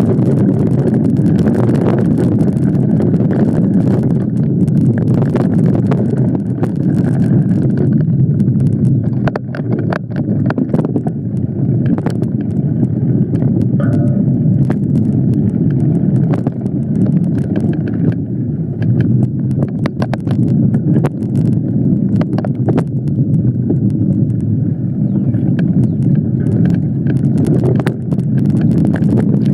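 Wind rushing over the microphone of a camera riding along on a moving mountain bike, with frequent clicks and rattles as the bike rolls over rough dirt singletrack.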